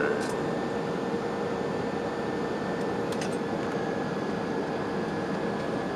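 Cabin noise of a Boeing jet airliner low on its landing approach: a steady rush of engine and airflow with a constant hum and a fainter high whine.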